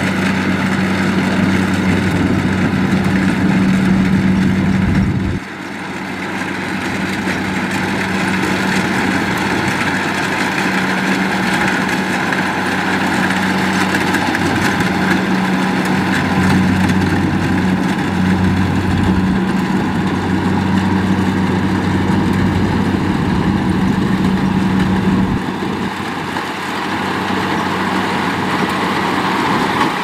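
Kubota DC-70 Plus rice combine harvester running as it cuts and threshes rice: a steady diesel engine hum over a broad mechanical noise from the harvesting machinery. The hum drops out abruptly about five seconds in and again about twenty-five seconds in, then returns.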